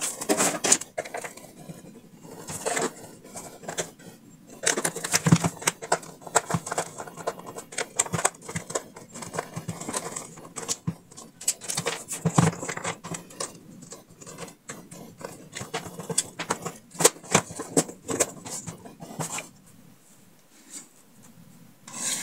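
The plastic housing of a Honda Activa 125 instrument cluster being handled and taken apart by hand: irregular clicks, knocks and scrapes as it is turned over and its clear front lens comes off. The handling goes quieter for a moment near the end.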